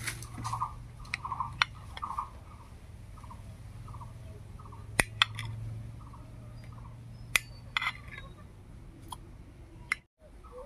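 Knife blade clinking sharply against a ceramic plate several times while slicing through a block of homemade paneer, with a bird calling over and over in the background.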